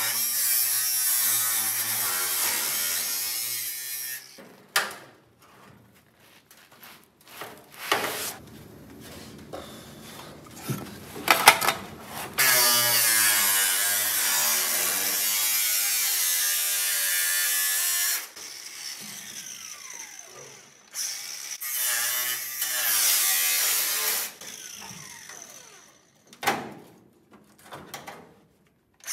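Cordless angle grinder cutting through rusty sheet steel at a car's lower hinge pillar in several bursts. Between cuts its motor winds down, and there is a sharp knock near the end.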